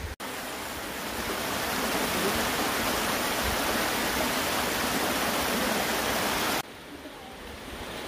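Mountain stream rushing over small rocky cascades, a steady dense hiss of water. About six and a half seconds in it drops abruptly to a quieter rush at a shot change.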